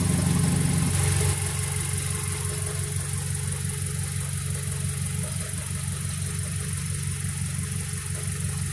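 Mazdaspeed3's turbocharged 2.3-litre four-cylinder engine idling steadily under a steady hiss, a little quieter after about a second.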